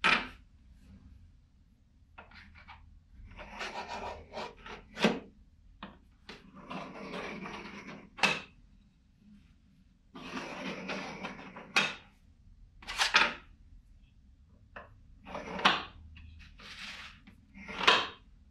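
A metal scriber drawn along a ruler across a thin metal sheet, in several scratching strokes of about a second or more each. Short sharp knocks fall between the strokes, the loudest near the end.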